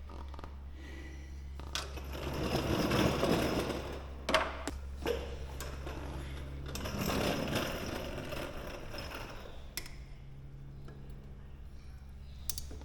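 Ratchet tie-down strap being worked to stretch an aircraft undercarriage bungee. Two bouts of fast ratcheting rattle of about two seconds each, with a few separate clicks and knocks, over a steady low hum.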